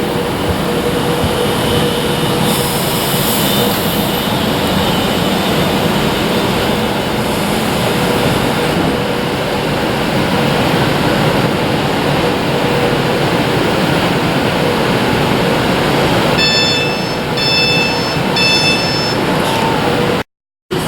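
Electric passenger train running through the station, a loud steady rush with a faint steady hum. Near the end, three short high-pitched beeps.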